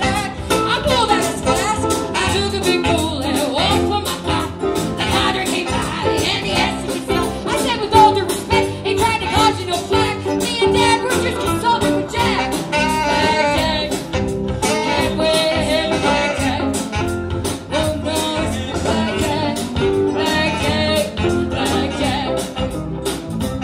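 Live band playing a song: saxophone, guitar, keyboards, bass and drums, amplified through stage loudspeakers.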